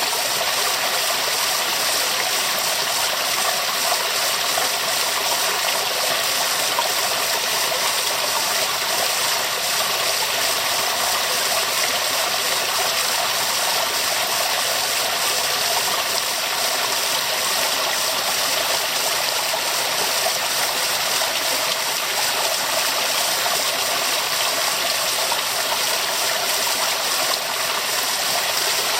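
Waterfall: a steady, unbroken rush of falling water, mostly high hiss with little low rumble.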